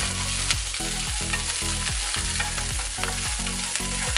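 Curry leaves and sliced green chillies sizzling steadily in hot coconut oil with mustard seeds and cumin in a nonstick frying pan, stirred with a wooden spatula.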